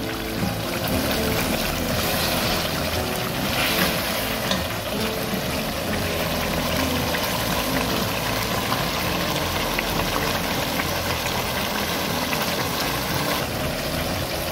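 Chicken pieces in green masala sizzling and bubbling steadily in hot oil in a pan as they fry down (bhuna stage, the liquid cooked off).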